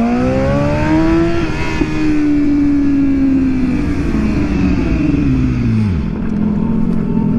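2015 BMW S1000RR's inline-four engine rising in pitch for about a second and a half, then easing off and dropping down to a low idle about six seconds in, with wind rush on the helmet microphone.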